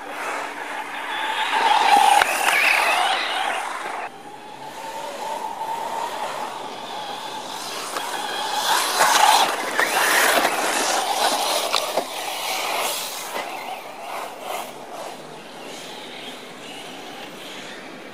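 Radio-controlled car driving on a dirt track, its motor whining up and down in pitch as the throttle changes. It is loudest about two seconds in and again as it passes close around nine to ten seconds in, then it fades.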